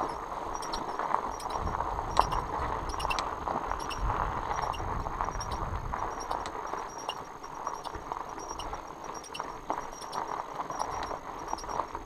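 Fat-bike tandem rolling over a loose gravel road: the steady crunch of fat tyres on stones, with irregular small clicks and rattles from the bike, which the riders think might be a pedal or the chain.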